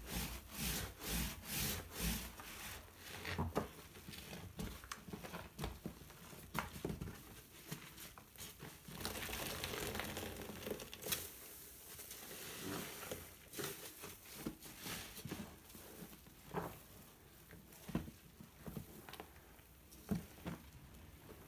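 Foam kitchen sponge soaked in dish-soap lather being pressed and squeezed by hand: wet squelching and crackling of foam. Quick repeated presses in the first few seconds, a longer squeeze about ten seconds in, then scattered squishes.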